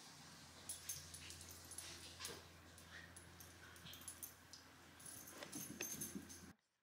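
Near silence: faint room hum with scattered light ticks and jingles from a cavapoo and a Yorkshire terrier moving about on carpet. The sound cuts off to dead silence near the end.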